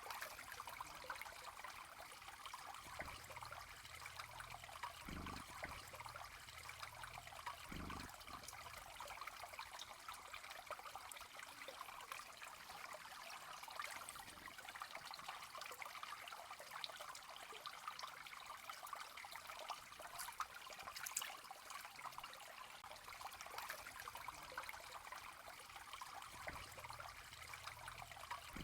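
Faint, steady trickling water, with two soft low thumps about five and eight seconds in.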